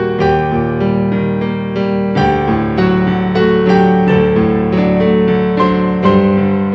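Soft instrumental piano music: a steady pattern of about three notes a second over held bass notes, the harmony shifting about two seconds in and again near the end.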